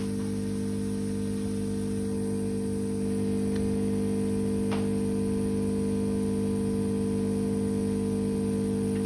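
Steady electrical hum made of several fixed low tones over a light hiss, growing slightly louder about three seconds in, with two faint clicks a second apart near the middle.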